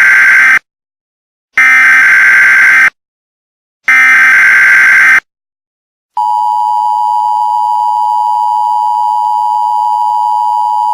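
Emergency Alert System tones: the end of one SAME header data burst and then two more raspy digital bursts, each a little over a second long with silence between them. About six seconds in, the steady two-tone EAS attention signal starts, the tone that announces an emergency alert message.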